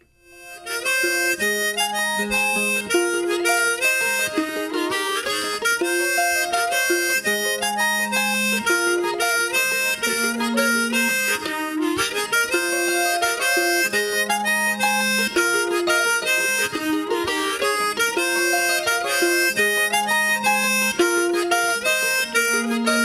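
Instrumental opening of an Irish folk song: a harmonica melody over plucked-string accompaniment, starting about half a second in.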